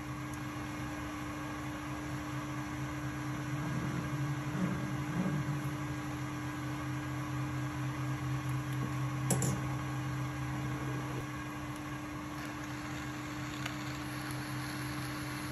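Metal lathe running with a steady hum while a drill in the tailstock chuck feeds into the end of the spinning steel workpiece to start the bore for the ball, with one brief click about nine seconds in.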